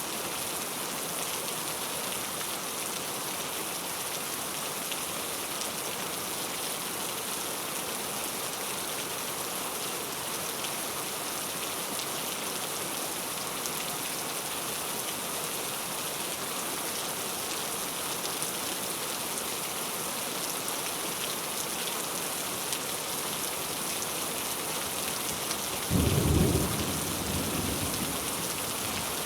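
Heavy rain falling steadily. Near the end a short, loud, low rumble of thunder rises over it.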